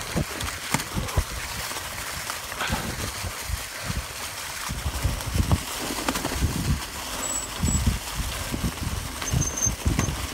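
Mountain bike riding downhill over a leaf-covered dirt trail: a steady rush of tyre and ride noise with irregular knocks and rattles from bumps, and gusts of wind rumbling on the camera microphone.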